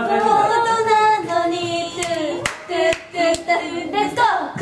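Several young women singing a tune together, with four sharp hand claps in a steady beat about halfway through.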